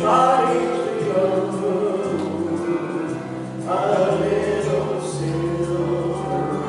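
Two women singing a gospel song together into handheld microphones over instrumental accompaniment, holding long notes, with a new phrase beginning about halfway through.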